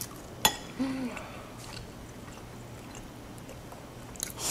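Quiet eating sounds at a table: a sharp click about half a second in, a brief hummed "mm" just after, then soft chewing, with a short noisy rustle near the end.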